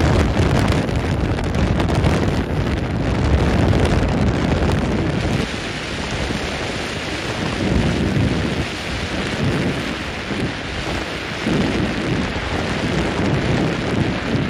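Wind buffeting the microphone on a moving boat, over the rush of water past the hull. The buffeting is heaviest in the first five seconds or so, then eases a little.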